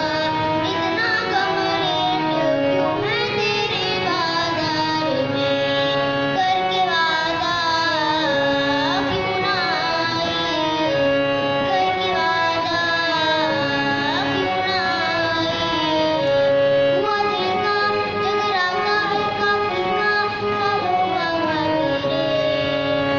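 A boy singing with his own harmonium accompaniment. The hand-pumped reeds hold steady notes under a sliding, ornamented vocal line.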